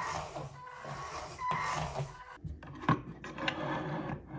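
A small wheeled combat robot's geared drive motors whining, rising and falling in pitch as it drives and turns on a hard floor. About halfway through the sound changes to scattered clicks and knocks of parts being handled on a desk, with one sharper knock.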